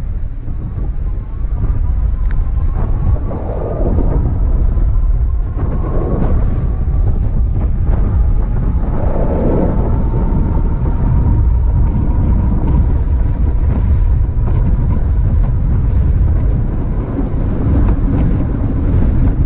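Wind buffeting a helmet-mounted camera's microphone on a moving electric bike, with a faint whine from the bike's hub motor that rises in pitch over the first several seconds and then holds steady.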